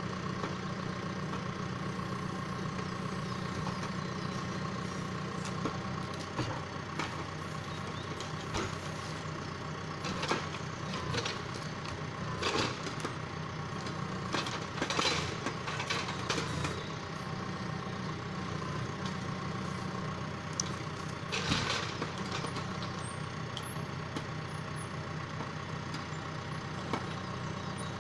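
John Deere 6115M tractor's four-cylinder diesel engine running steadily while it powers a timber trailer's hydraulic loading crane, with a cluster of knocks and clunks in the middle and another knock about three-quarters through as the crane handles logs.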